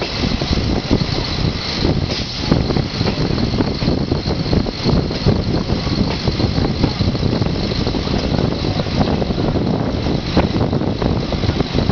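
Diesel railcar running along the track, heard from inside the car: a steady, loud rumble of the engine and wheels with a rapid irregular flutter on top.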